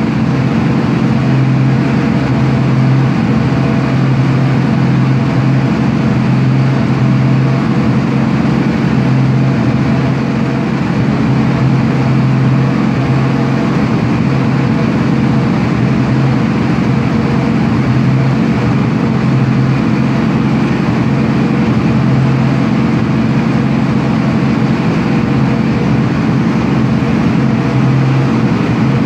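Turbocharged drift car engine running at a steady, constant speed on a chassis dynamometer, held under load while it is being tuned.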